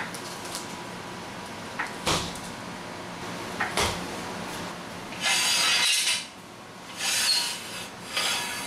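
Two knocks, then two rough scrapes as a steel jack stand is slid across the concrete floor and set under the car. A steady hum from a running air-conditioning unit sits underneath.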